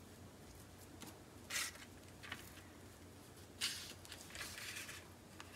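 Faint handling sounds of rolling meat filling up in sheet dough on baking paper: a few short rustles and crinkles of the paper, the loudest about a second and a half in and again a little past the middle.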